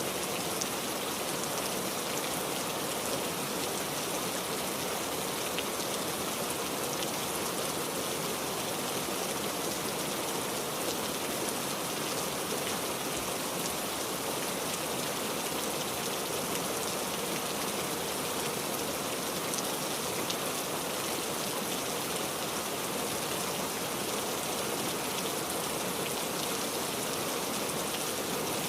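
Steady rain falling, with scattered individual drops ticking through an even hiss.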